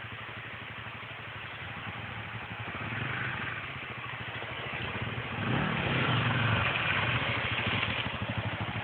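Several dual-purpose dirt bikes running along a forest trail, a low engine note that grows louder from about five and a half seconds in as the bikes come closer.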